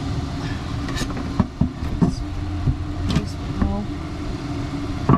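Wooden boards knocking and tapping as a panel piece is positioned, a handful of sharp knocks spread through, the loudest near the end. Under them runs a steady low mechanical hum.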